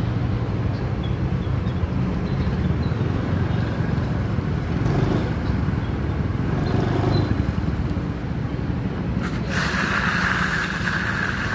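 Steady low rumble of motor traffic, with a brighter hiss coming in about nine seconds in and holding on.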